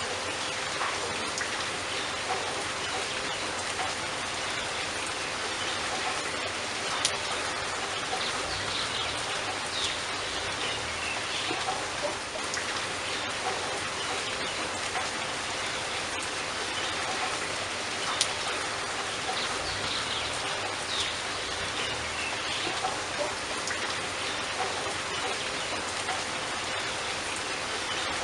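Steady rain falling on leaves, an even patter with occasional louder single drops.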